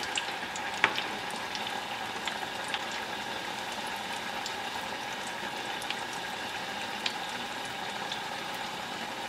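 Schneeball dough deep-frying in oil heated to about 350 °F in a stainless steel pot: a steady bubbling sizzle. A few light clicks of the metal spoons against the pot come through it, the sharpest about a second in.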